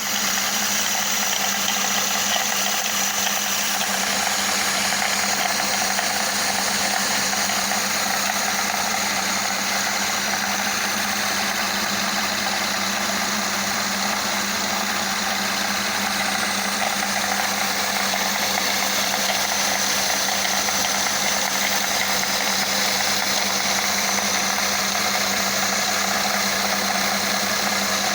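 Mercedes-Benz M276 V6 engine running steadily at a constant speed, with an extraneous noise from the valvetrain: the sign of an intake camshaft adjuster that had broken apart.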